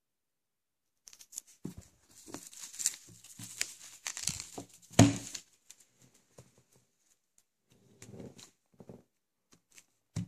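Thin paper wrapping crinkling and tearing as it is pulled off a hardcover book, with a loud knock about five seconds in. Sparser rustling follows, and a short knock comes near the end.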